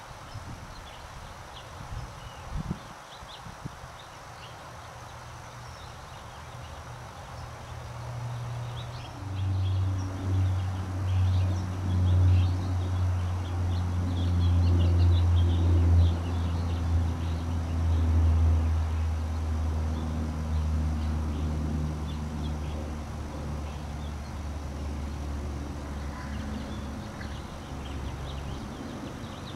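A low, steady engine drone that swells about nine seconds in and slowly fades toward the end, with faint bird chirps over outdoor ambience.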